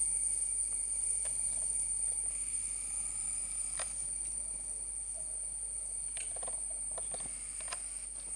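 Steady high-pitched insect trilling throughout, with a few short clicks and brief soft sounds scattered in, most of them in the later half.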